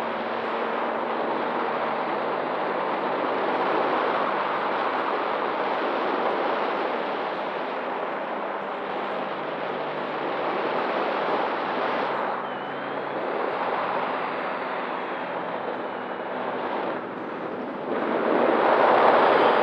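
Loud, steady rushing wind noise from airflow over the microphone of a camera carried on a flying electric RC Cessna 170 model, with a faint high whine gliding in pitch partway through. It swells to its loudest over the last couple of seconds and cuts off suddenly.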